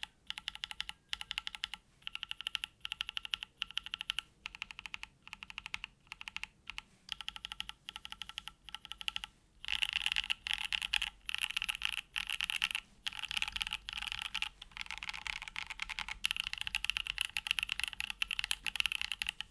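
Typing on a Mode Envoy mechanical keyboard with a carbon-fibre plate and plate foam, hand-lubed Kailh Co Coa switches and GMK Olive keycaps. The keystrokes come in short bursts at first, then become faster and near-continuous from about halfway through.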